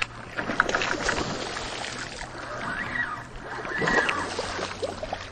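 Snakehead thrashing and splashing at the water's surface on the frog lure, with a louder splash about four seconds in as the fish leaps clear of the water.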